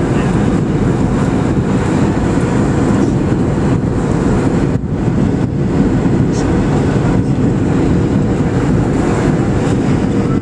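Steady, loud cabin noise inside a Boeing 737-700: engine and airflow rumble with a faint steady tone above it, briefly dipping about five seconds in.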